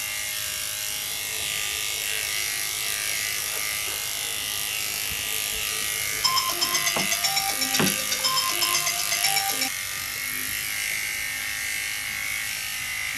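Electric dog clipper, a Wahl KM10 fitted with a 3/4 comb attachment, running steadily as it cuts through a toy poodle's coat. From about six to nine and a half seconds in, a few seconds of short musical notes with a fast ticking beat sound over it.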